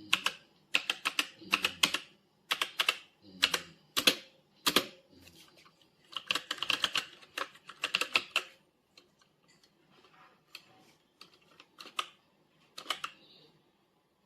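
Typing on a META68 65% mechanical keyboard: quick runs of sharp key clicks with short pauses between them, thinning out to fewer, quieter keystrokes about nine seconds in.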